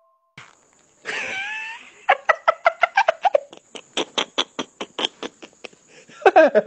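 A person's voice from a WhatsApp voice message: a short wavering vocal sound about a second in, then quick, evenly spaced bursts, about four or five a second, for several seconds.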